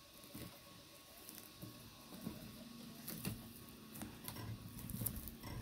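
Fingers peeling the charred, brittle skin off a grilled banana: soft irregular crackles and clicks of the burnt peel tearing and flaking onto a foil plate.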